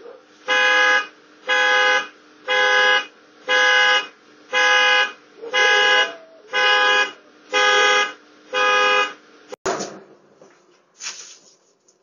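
Car alarm sounding the horn in eight even honks about a second apart, set off during an attempted car theft. After the last honk there is a sharp click and a short burst of noise.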